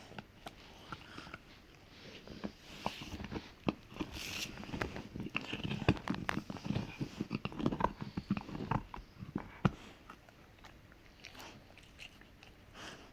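A Rottweiler gnawing on a hard hoof chew: irregular cracks and clicks of teeth on hoof, busiest through the middle and thinning out near the end.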